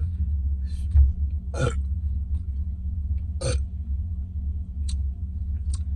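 Two short burps from drinking soda, about two seconds apart, each brief and sharp, over a steady low rumble.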